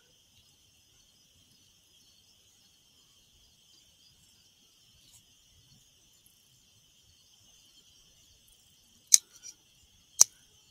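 Steady chorus of night insects, like crickets, in two high even bands. Near the end come two sharp mechanical clicks about a second apart, the first followed by a fainter click.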